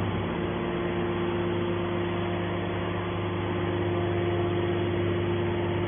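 Hydraulic can baler's power unit running steadily: a constant mechanical hum with a steady held tone.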